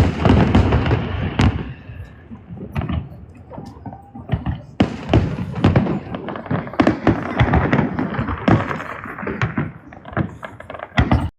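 Aerial firework shells bursting in a rapid, irregular string of booms, with crackle between them. The sound cuts off suddenly near the end.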